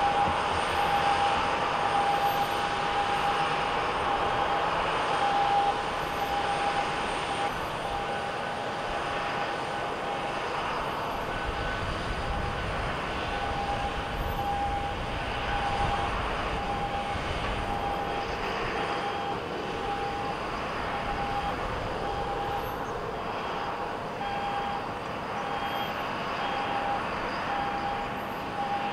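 Jet airliner engines running steadily on the ground, with a high whine that swells and fades about once a second. The engines get a little quieter after about eight seconds.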